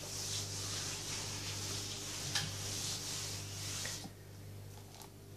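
A cloth wiping back and forth across a plastic oilcloth table covering: a soft, rough swishing in repeated strokes that stops about four seconds in.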